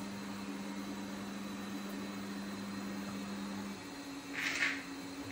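Kitchen knife slicing through raw potato on a plastic cutting board: two short scraping cuts near the end, over a steady low hum.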